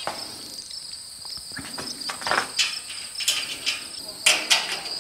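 Light metal clinks and taps as bolts and nuts are fitted through a steel garage-door track and its flag bracket, scattered through the second half. Under them runs a steady high-pitched insect trill.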